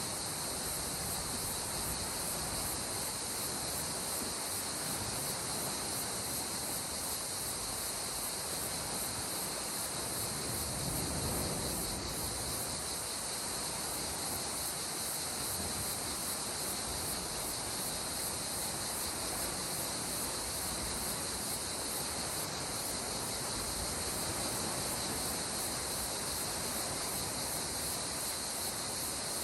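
A steady high-pitched chorus of insects over a soft, even wash of gentle sea water, with a slight swell of the water about eleven seconds in.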